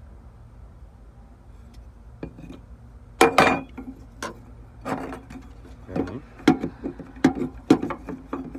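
Hand tools and parts knocking and clinking during fuel pump removal: about a dozen sharp strikes starting about three seconds in, over a low steady hum.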